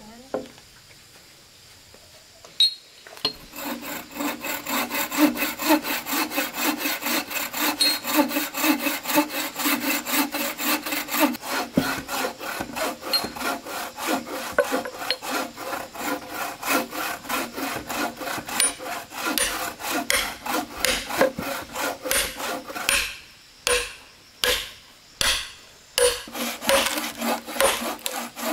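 A hand tool rasping in quick back-and-forth strokes, about four a second. The strokes slow to a few separate ones with short gaps a little before the end, then speed up again.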